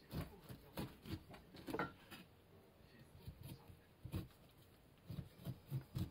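Kitchen knife cutting through pineapple on a plastic cutting board: a string of short, irregular crunches and soft taps.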